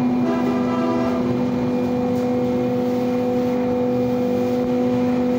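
Steady electric motor hum from workshop woodworking machinery, holding one constant pitch. It is briefly joined by a fainter, higher whine near the start.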